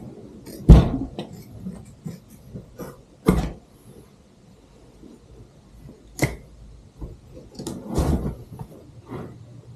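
Hand work on a vinyl jet ski seat cover as it is cut and pulled apart at its seams: four sharp knocks and snaps, the loudest about a second in, with smaller clicks in between from tools being handled and put down on the workbench.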